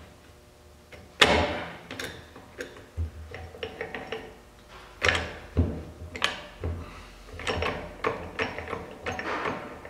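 Shift mechanism of an open 2015 Polaris Scrambler 1000 transmission being worked through its gears by hand: a series of sharp metallic clicks and clunks as it drops into each position. The loudest comes about a second in, and a quicker run of clicks follows near the end.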